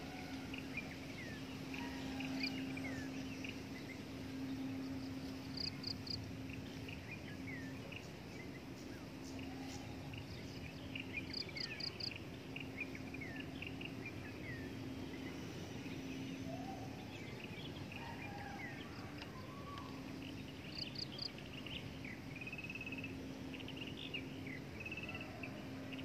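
Small birds chirping and calling in the trees with many short, quick notes. A brief high triple note repeats every few seconds, over a steady low hum that drops out now and then.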